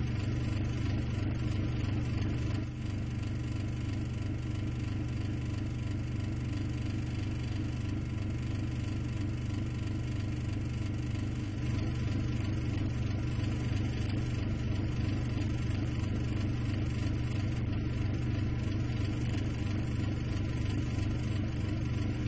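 Spaceship engine sound effect: a steady, unbroken low droning hum as the ship cruises along.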